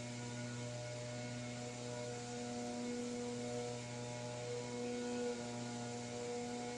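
Steady hum made of several held tones, with a faint hiss underneath.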